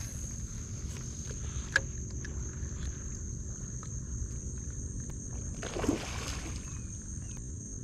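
Outdoor water-side ambience: a steady low rumble and a steady high whine, a sharp click a little under two seconds in, and a splash on the water about six seconds in.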